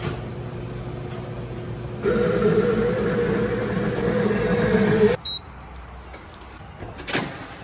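Schaerer Coffee Art bean-to-cup coffee machine running for about three seconds with a loud, steady, slightly wavering motor whine as it makes a cup from whole beans, cutting off abruptly. Before it, a low steady hum; a sharp knock sounds near the end.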